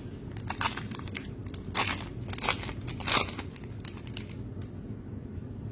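Trading-card packs and cards being handled: a run of short crinkling, rustling noises over about four seconds, the loudest near the middle.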